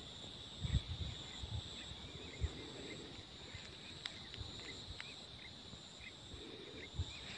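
Rural outdoor ambience: a steady high insect buzz, with faint short chirps repeating every half second or so and occasional low thumps.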